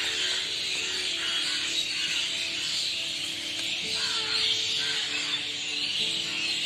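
Dense chorus of many birds chirping together, a continuous high twittering chatter.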